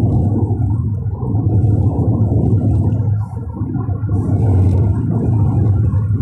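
Loud, steady low rumble of road and wind noise inside a moving car's cabin at highway speed, dipping briefly about three seconds in.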